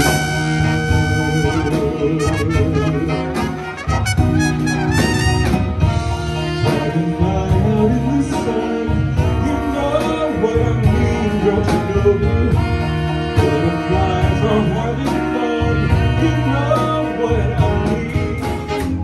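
Swing big band playing live: a male vocalist singing over a horn section of saxophones, trumpets and trombone, backed by drums, keyboard and electric guitar.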